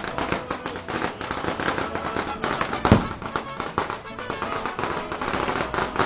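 Mariachi band playing and singing, under a rapid crackle of firecrackers that goes on throughout, with one louder bang about three seconds in.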